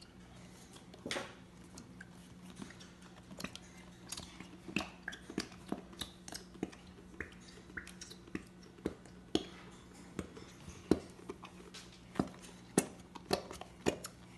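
Plastic squeeze bottle of white school glue being squeezed hard into a bowl, giving irregular squelching pops and clicks as glue and air spurt from the nozzle, over a steady low hum.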